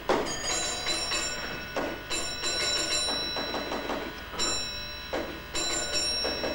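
Signal box telephone bell ringing in several short bursts of quick strikes. It is a train driver ringing in from the line to report that his train has arrived.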